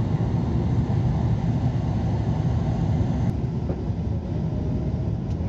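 Steady low rumble of Boeing 777 cabin noise on approach: engine and airflow noise heard from a window seat over the wing. The higher hiss drops away abruptly about three seconds in.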